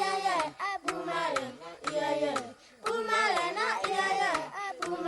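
Children singing a song with sharp hand claps keeping a rough beat.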